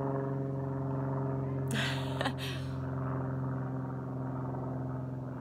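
A steady, unchanging machine hum made of several pitches stacked together, with a short breathy noise about two seconds in.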